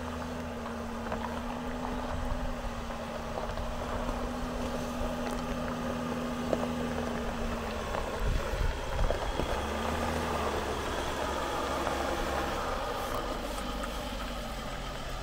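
Mercedes-Benz Sprinter 4x4 camper van driving over a rough gravel track, its diesel engine running steadily, with a few knocks and rattles about halfway through.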